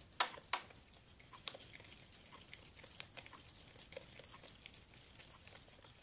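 Sticky glue-and-soap slime being stirred in a plastic bowl, giving off small irregular wet clicks, a few a second, the strongest just after the start. The slime is thickening as the Perwoll detergent activator is worked in.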